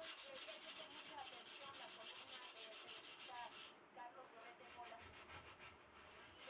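Hand sanding of an aluminium wheel rim's damaged lip: quick, even back-and-forth strokes, about seven a second. They stop briefly about four seconds in, then go on more softly.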